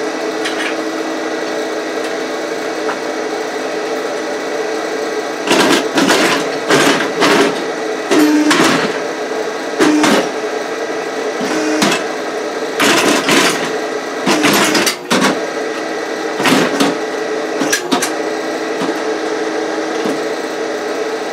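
Hydraulic power unit running with a steady hum, while the exoskeleton's solenoid-switched hydraulic arms move in a series of short, noisy bursts from about five seconds in.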